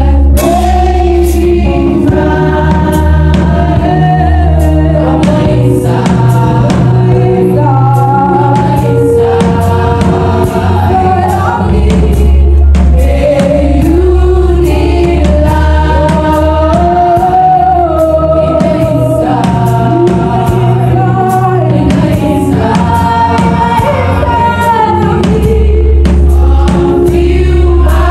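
A church choir singing a gospel praise song, led by a solo singer on microphone, over a live band with deep sustained bass notes.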